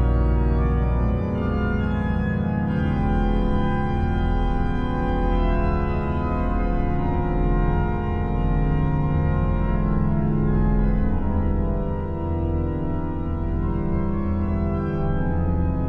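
Organ playing held chords that change every few seconds over a deep sustained pedal bass.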